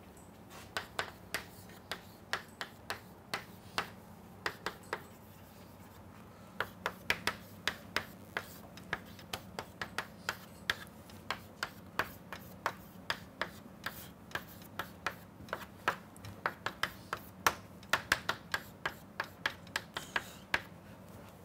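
Chalk tapping and scraping on a blackboard while writing: a quick, irregular run of sharp clicks, with a short pause about five seconds in.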